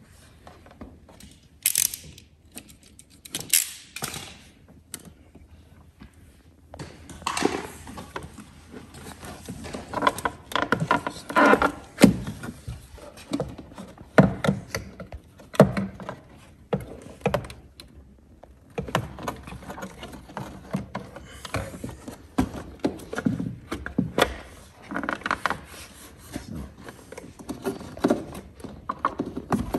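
Hands working a corrugated plastic vent hose and its plastic fittings in a toilet cassette compartment: irregular clicks, knocks and rustles, with a few sharper clatters in the first few seconds.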